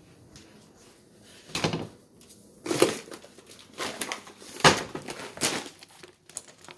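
A run of short crackling, rustling knocks, about one a second, starting about one and a half seconds in.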